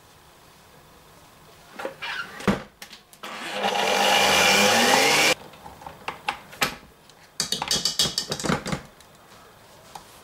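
Electric stand mixer with a wire balloon whisk whipping sour cream with sugar: the motor runs for about two seconds, rising in pitch as it speeds up, then stops abruptly. Sharp knocks before it and a rattling clatter after it come from handling the mixer.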